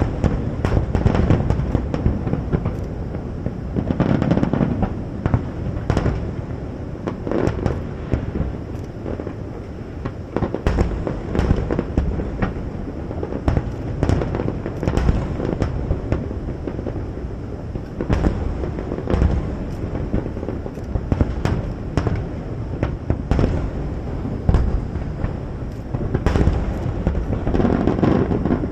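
Aerial fireworks display: shells bursting one after another in a dense, continuous barrage, sharp cracks over a steady rumble of booms.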